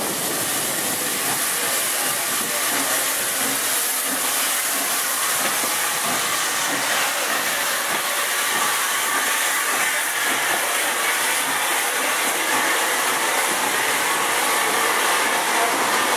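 Furness Railway No 20 steam locomotive passing close by with a train of coaches, a loud steady hiss of steam throughout as it engulfs the spot, then the coaches rolling past.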